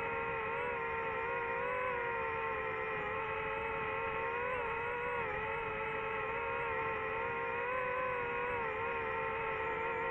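DJI FPV drone's motors and propellers whining steadily in flight, the pitch wobbling slightly up and down with small throttle changes.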